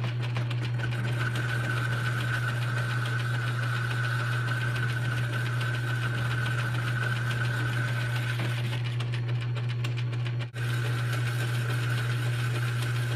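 Metal lathe running, boring out a bearing hole in a steel angle-iron bracket: a steady low hum with a high whine over it that fades about eight seconds in and returns after a momentary break.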